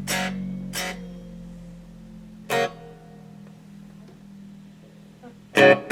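Electric guitar played through a Fender Vibrolux Reverb clone amplifier into a bare, open bench speaker with no cabinet, its spring reverb on: four strummed chords, two close together at the start, one a couple of seconds in and the loudest near the end, each left ringing.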